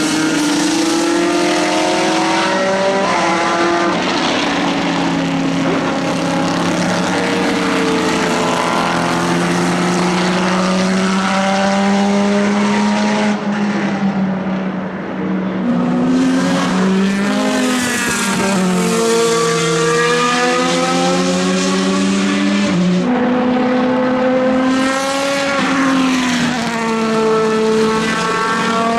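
Several race car engines at high revs passing by in turn, their pitch rising and falling with gear changes and throttle. The sound dips briefly about halfway through before the next cars come through.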